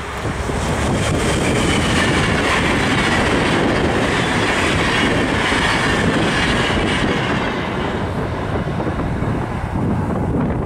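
Locomotive-hauled passenger train of NS ICRm intercity coaches passing at speed: the rumble and clatter of wheels on the rails builds in the first second. Faint sliding whines from the wheels ride over it, and it eases off as the last coach goes by near the end.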